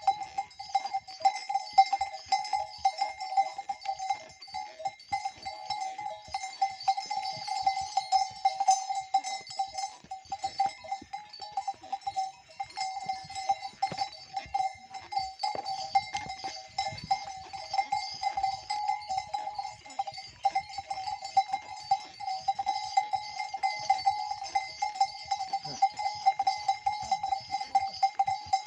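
Bells on walking horses ringing continuously, a steady metallic ring with many irregular clanks as the animals step along.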